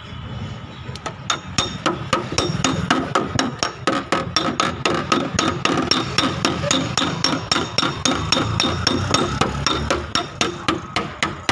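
Rapid, even hammer taps on a car's sheet-metal quarter panel, about five a second, starting about a second in: a dry (paintless) dent being tapped out of a Hyundai i20.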